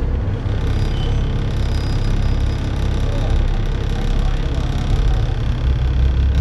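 Diesel engine of a Dennis Trident double-decker bus running under way, heard from inside the bus as a steady low drone with road noise.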